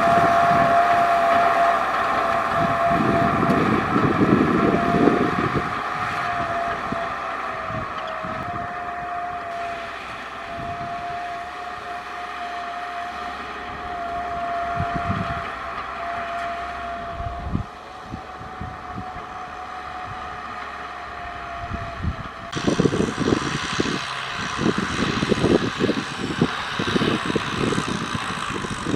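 Kubota M6040SU tractor's diesel engine running while ploughing, with a steady whine over the engine noise. Past the three-quarter mark the sound changes abruptly to an uneven, buffeting rumble.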